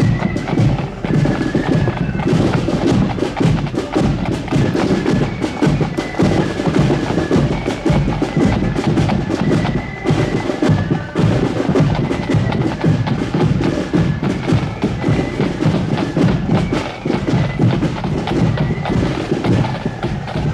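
Accordion band playing, the accordions' melody over a steady beat of snare and bass drums.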